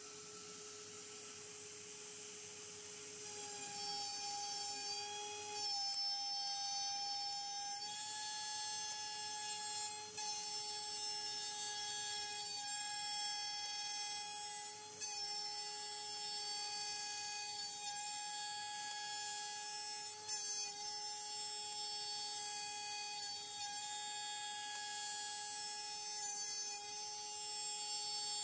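CNC router running: the AMB/Kress FME1050 spindle gives a steady high whine, with motor tones that shift slightly in pitch every few seconds as the machine moves.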